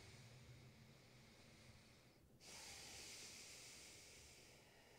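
Faint, slow Ujjayi breathing through the nose with the lips sealed: one breath fades out about two seconds in, then a second, slightly louder breath follows and fades toward the end.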